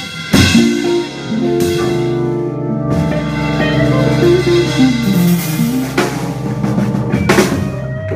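Live jazz trio of drum kit, archtop electric guitar and keyboard playing held chords, with several cymbal crashes and drum hits over them.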